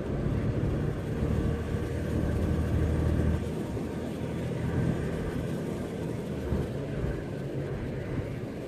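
Toyota Land Cruiser 80 series (FZJ80) with its 4.5-litre straight-six running while driving on a paved road, heard from inside the cab: a steady low engine hum with road noise.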